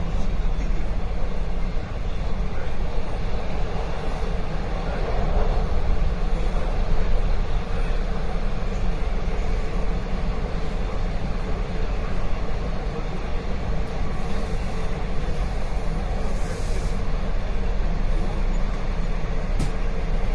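Subway train running, heard from inside the car: a steady, loud rumble of wheels and motors on the track, with a brief hiss about three-quarters of the way through and a sharp click near the end.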